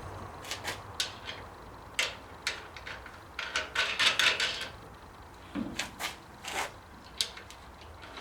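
Metal parts clinking, knocking and scraping as an XB Falcon master cylinder is fitted onto a Gemini brake booster: a string of short irregular clicks, thickest a few seconds in.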